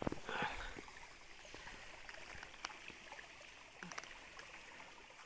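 Shallow stream flowing over rocks: a faint, steady trickling, with a few light clicks and knocks.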